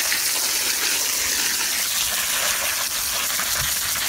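Garden hose with a spray nozzle jetting water onto a potted peach tree's root ball, washing the packed soil and compost off the roots: a steady, unbroken rush of spraying water.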